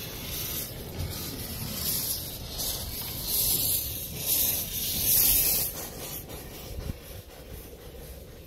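Steam hissing from a live-steam locomotive being steamed up, swelling in two louder surges about three and a half and five seconds in.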